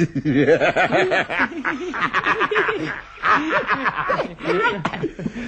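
A person laughing heartily in quick, pitched bursts, breaking off briefly about three seconds in and then laughing again.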